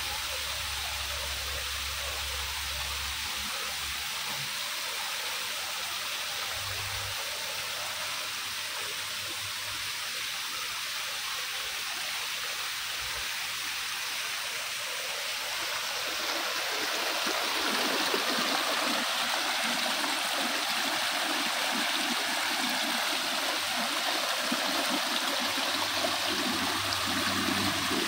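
Water from rock waterfalls splashing into a pond: a steady rushing cascade. About sixteen seconds in it grows louder and fuller, as water pours over mossy rocks close by.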